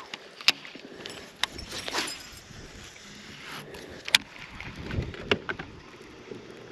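A handful of sharp, separate clicks and knocks from fishing tackle being handled in a boat, over a faint, steady low background.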